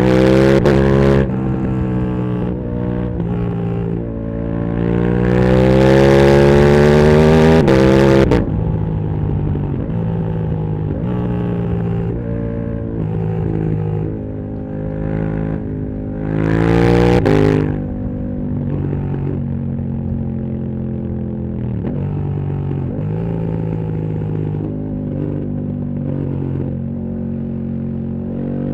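KTM 1290 Super Duke R's 1301 cc V-twin through a full titanium Akrapovic exhaust, ridden hard. Its pitch rises through a long loud pull that cuts off sharply about eight seconds in as the throttle closes. A second short burst of acceleration comes around seventeen seconds; in between and after it runs at steadier part throttle with small rises and falls in pitch.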